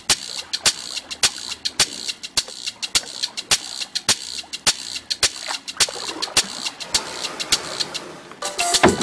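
Salsa music stripped down to its percussion: sharp hits on a steady beat, roughly two strong strokes a second, over a light hiss. The melody comes back in near the end.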